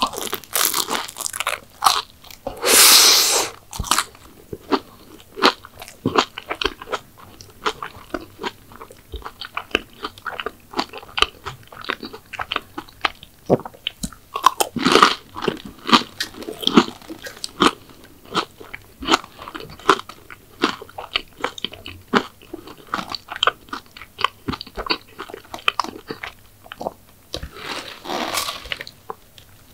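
Close-miked eating of crunchy sweets: a few loud crunching bites, one long one a few seconds in and others about halfway and near the end, with steady chewing crunches and wet mouth clicks between them.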